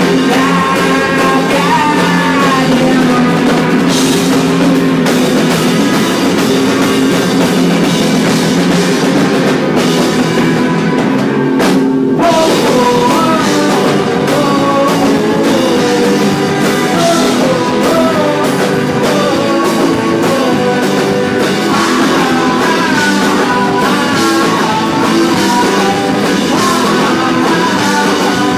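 Garage rock band playing live: guitars, drum kit and a singing voice, loud and continuous, with a very short break about twelve seconds in.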